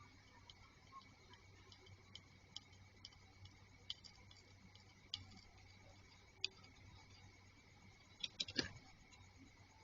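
Faint, scattered small clicks and ticks over a low steady hum, with a quick cluster of louder clicks near the end.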